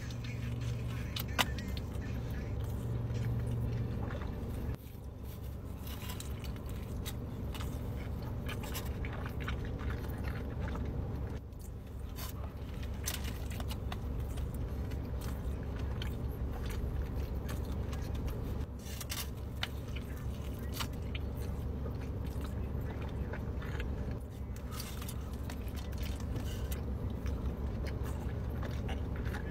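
Close-up eating sounds: bites into a large burrito and chewing, heard as scattered small wet clicks and crackles. Under them is a steady low hum in the car's cabin.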